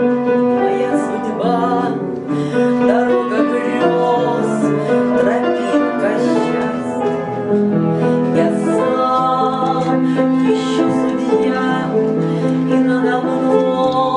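A woman singing with vibrato, accompanied by chords on an upright piano.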